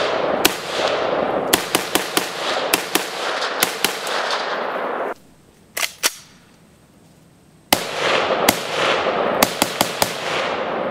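FSN-01K AK-pattern short rifle fired in quick single shots, each sharp crack followed by a long rolling echo. About nine shots come in the first four seconds, then the sound drops away for a couple of seconds with two quick shots in the gap, and another string of about seven shots follows.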